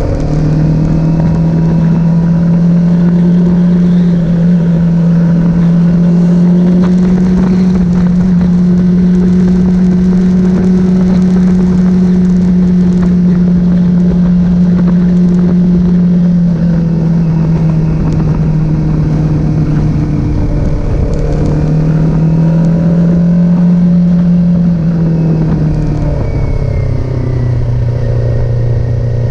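Kawasaki Z400 motorcycle engine running loudly at a steady engine speed. Its pitch sags and climbs back up a couple of times and settles lower near the end.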